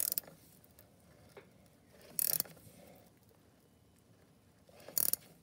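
A ratchet wrench turning the forcing screw of a motorcycle chain press tool on a drive chain link: three short bursts of ratchet clicking, at the start, a little after two seconds in and near the end.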